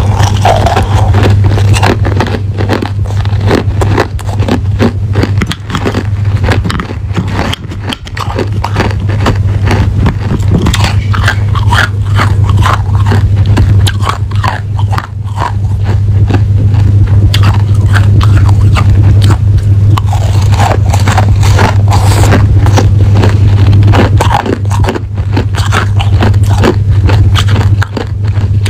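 Crushed ice being bitten and chewed close to the microphone: a dense, irregular run of loud crunches and crackles. A steady low hum runs beneath.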